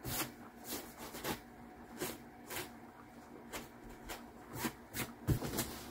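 Paper towel wiped with rubbing alcohol over a wallpaper-covered wall panel, cleaning the surface: a string of short, soft, irregular rubbing strokes, roughly two a second.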